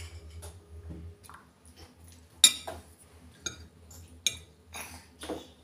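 Metal fork clinking against a ceramic plate while twirling spaghetti: about five sharp clinks, the loudest about two and a half seconds in.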